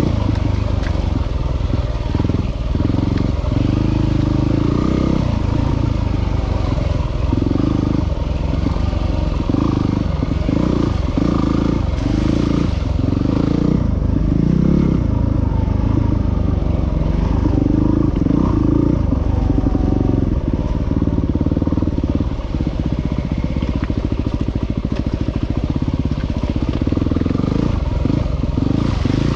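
A motor vehicle engine running continuously, its revs rising and falling every second or so.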